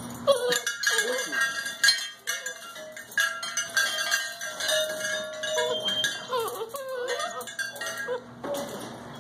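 Puppies pawing and jumping against a metal wire exercise pen, the bars rattling and clinking repeatedly, mixed with high whines from the puppies.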